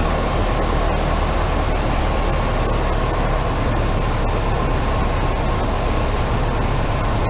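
Luscombe light plane's piston engine and propeller, heard from inside the cockpit, running steadily throttled back on the landing approach, with a wide rush of airflow.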